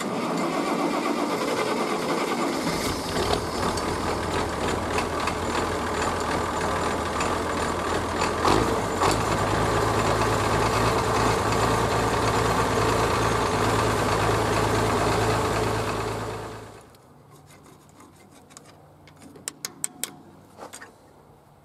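Old farm tractor's engine running steadily, then shutting off about three-quarters of the way through; a few light metallic clicks follow.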